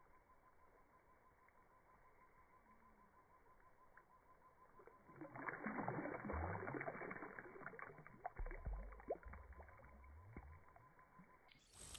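A fish thrashing at the surface of shallow water. After a near-silent start with only a faint steady whine, it breaks into a run of wet splashes and slaps about five seconds in, with low thuds in the later part.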